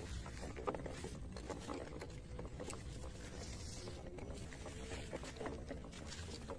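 Radio-controlled toy truck driving off-road: a faint whine from its small electric motor under a steady crackle and patter of tyres over dirt and leaf litter.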